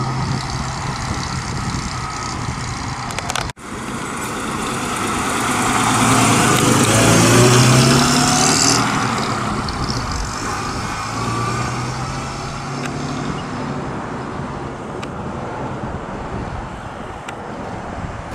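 1929 Oakland American 6's six-cylinder engine running as the car drives off at low speed. Its note rises as it accelerates, loudest about halfway through, then fades as the car moves away.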